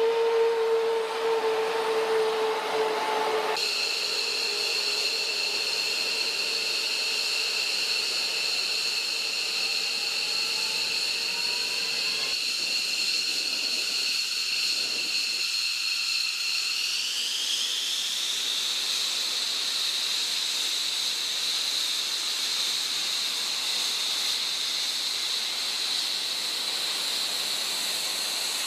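F-15 Eagle's twin Pratt & Whitney F100 turbofan engines running on the ground: a steady high-pitched turbine whine over a rushing hiss. A lower hum at the start gives way a few seconds in to the higher whine. About halfway through, the whine rises in pitch and settles higher as the engines are throttled up.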